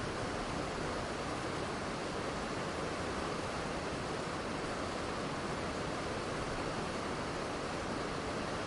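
Steady rush of a waterfall, a continuous even wash of falling water with no change in level.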